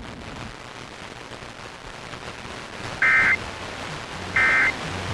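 Emergency Alert System end-of-message data tones: short, shrill two-tone digital bursts, two of them about 1.3 s apart, over a steady hiss of broadcast static. They signal that the alert message is over.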